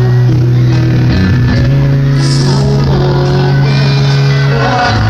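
Live rock band playing loud through the PA: electric guitar, keyboard and bass holding long chords under a sung vocal, echoing in a large hall. The bass note changes about a second and a half in and again near the end.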